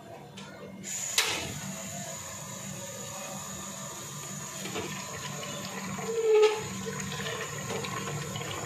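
Mutton gravy simmering and bubbling in an open aluminium pressure cooker, a steady watery sound, with a sharp click about a second in and a short louder knock about six seconds in.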